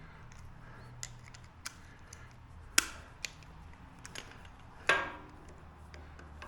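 Pliers wrapping steel wire around a bottle neck: scattered light clicks and taps of metal on metal, with two louder clinks about three and five seconds in, the second ringing briefly.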